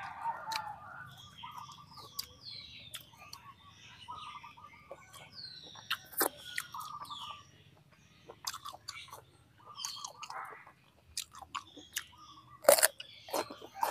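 Close-up chewing and mouth smacking while eating braised pig intestines, with a sharp crunchy bite into a raw green vegetable near the end.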